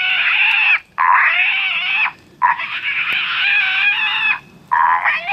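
Electronic game caller playing a piglet distress call, a lure for wild hogs: a run of loud, high squeals, each lasting one to two seconds, with short breaks between.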